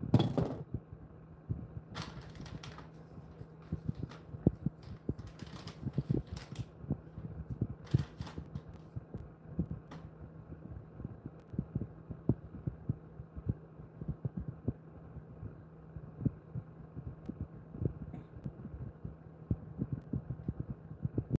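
Steady low electrical hum with irregular soft, dull thumps, several a second, and a few sharper clicks in the first ten seconds.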